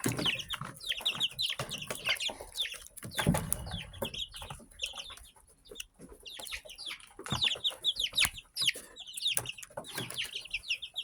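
A flock of young chickens peeping: many short, high, falling peeps in quick succession, mixed with scattered light taps and rustles.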